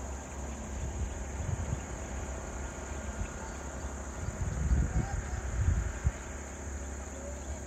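Steady high-pitched drone of insects, with low rumbling bumps about four to six seconds in.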